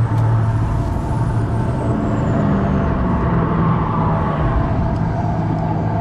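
Road traffic passing close by: a steady, loud drone of car and truck engines and tyres, with engine notes slowly rising and falling.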